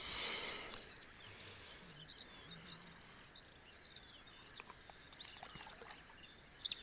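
Faint birdsong: scattered short chirps and quick trills from wild birds, after a brief rustle of noise in the first second.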